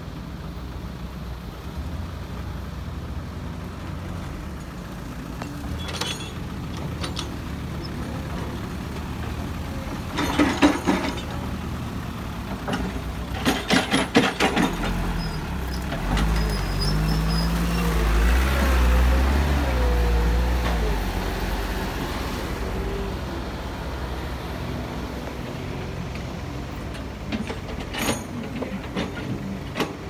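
Diesel engines of a Caterpillar tracked excavator and dump trucks running at a soil-loading site. There are two runs of rapid clanks and knocks about ten and fourteen seconds in. From about sixteen to twenty-two seconds a louder engine note comes in with a wavering whine.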